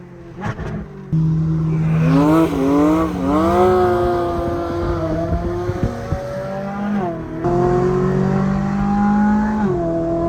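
Straight-piped Ferrari 458 Speciale's V8 pulling hard through the gears, its pitch climbing and then dropping sharply at each shift several times after a quieter first second.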